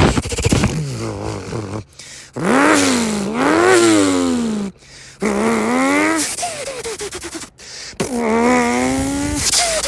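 Nissan R34 Skyline GT-R's twin-turbo inline-six (RB26DETT) revved hard several times, the pitch rising and falling in repeated sweeps, with brief breaks between the runs.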